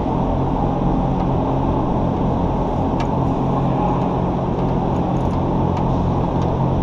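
Heavy-duty truck diesel engine idling steadily as a low, even drone, with a few faint clicks.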